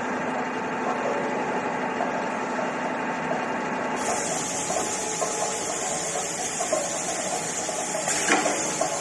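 Mechanical flywheel punch press with a hinge-curling die running steadily, a continuous machine hum with a faint repeated rattle, and one sharp knock near the end.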